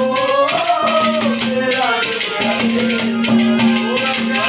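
Instrumental interlude of Haryanvi folk ragni music: a harmonium holds a steady low note under a gliding melody, with shaken rattle-like percussion keeping time throughout.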